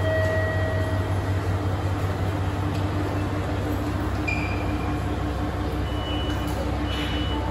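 Steady low rumble of a diesel train idling at the station platform, with a few brief high electronic tones now and then.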